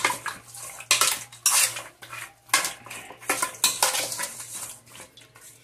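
Seasoned raw fish pieces being tossed and turned in a metal pot with a spoon and hand, giving a run of clanks and scrapes against the metal, several sharp ones about a second apart, with a faint low hum underneath.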